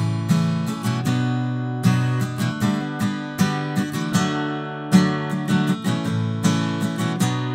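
Steel-string acoustic guitar strummed in a steady chord rhythm, picked up by a HyperX QuadCast USB condenser microphone.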